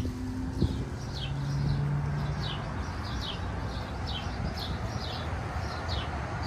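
A small bird chirping repeatedly in short, falling high notes, about two or three a second, over a low steady rumble of street traffic.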